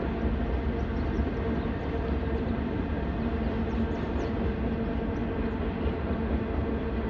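Freight train rolling past: a steady, dense rumble with a low hum running through it.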